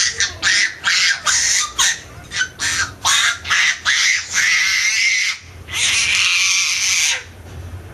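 Seven-month-old baby squealing: a quick run of short, breathy high squeals, then two long drawn-out screechy squeals that stop about seven seconds in.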